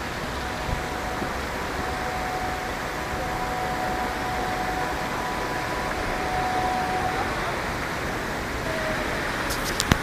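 Steady rushing of Torc Waterfall, water cascading over rocks into a pool. Near the end come a few sharp clicks of a hand handling the camera.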